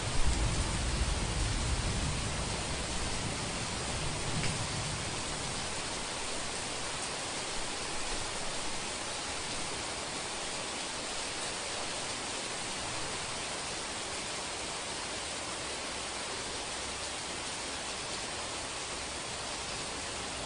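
Heavy rain falling in a steady hiss. A low thunder rumble at the start dies away over the first five seconds or so.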